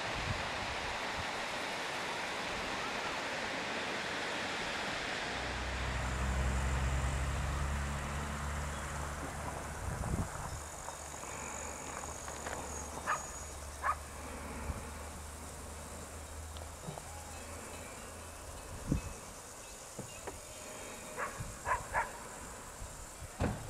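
Wind buffeting the microphone, then a steady high-pitched insect chirring in a summer meadow. A low hum runs for several seconds under it, and a few short clicks come near the end.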